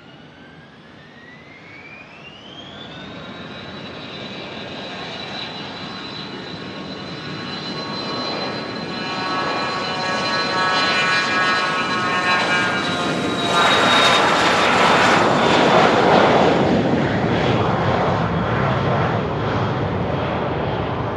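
Jet engines spooling up to takeoff power, a whine that rises for the first few seconds and then holds steady. The sound grows steadily louder as the jet accelerates down the runway, turning into a broad roar about two-thirds of the way through as it passes.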